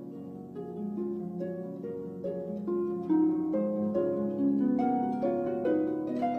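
Background music: plucked strings playing a quick, flowing run of separate notes.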